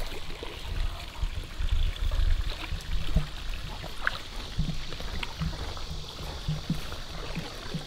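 Low, uneven rumble of wind and handling on a handheld camera's microphone, with short low sounds now and then.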